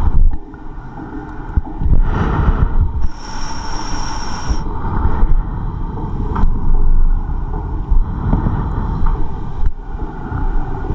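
Breathing in and out through a Scott PROmask full-face respirator and its breathing hose: air rushing through the mask in uneven swells. A high whistle sounds from about three seconds in for a second and a half.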